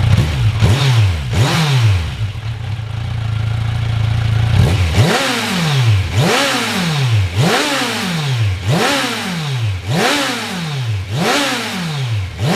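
Kawasaki Versys 1000's inline-four engine through a Holeshot 14-inch Street Core slip-on muffler, the quietest of the tested versions. The throttle is blipped twice, the engine idles for a few seconds, then it is revved in a run of quick blips about once a second, each rising sharply and falling back toward idle.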